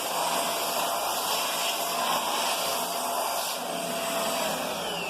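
Britânia vacuum cleaner running, a steady rushing whine of its motor and airflow. Near the end its pitch starts to fall as the motor winds down.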